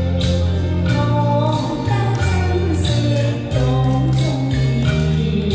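A woman singing a slow nostalgic pop song into a microphone over backing music with bass and a steady drum beat.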